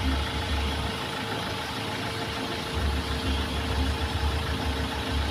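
Mahindra XUV500 engine running steadily at idle with no belt squeal, its fan belt and tensioner freshly replaced.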